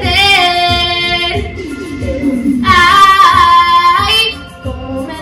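A young woman singing solo over a recorded backing track with a steady beat: one long held phrase at the start, then a louder, higher one in the middle.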